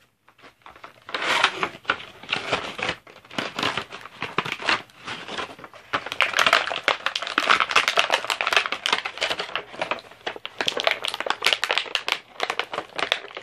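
Plastic and cardboard action-figure packaging being opened by hand: dense crinkling, rustling and small clicks, busier and louder through the second half.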